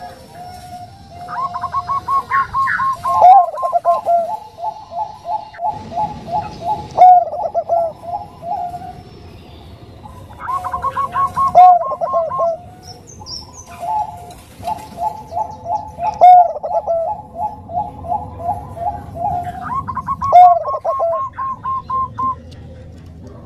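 Bangkok-strain zebra dove (perkutut) singing: about four phrases of rapid staccato coos. Each phrase opens with a quick run of higher notes and drops into a longer, lower run with a few louder accented notes.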